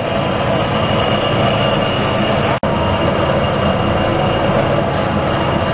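Steady, loud machine-like roar and low hum with a constant high whine, broken by a momentary dropout about two and a half seconds in.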